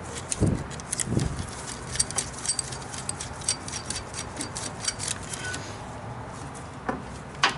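A steel hook clinking and jingling against a brake caliper as it is handled and hung up: many small metallic clicks over the first five seconds or so, two dull knocks in the first second, and a sharper click near the end.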